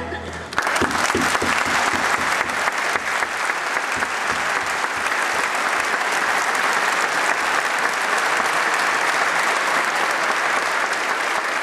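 Large audience applauding. The clapping breaks out about half a second in and holds steady.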